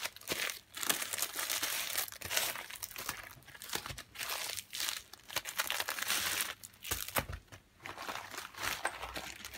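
Plastic packaging crinkling and rustling on and off as rolled diamond painting kits in plastic sleeves and mailer bags are handled and laid out.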